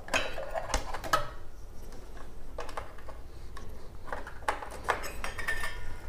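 Scattered sharp clicks and light plastic knocks as DDR3 ECC memory modules are handled and pushed into a server motherboard's DIMM slots, in small clusters: several in the first second, then a few more toward the end.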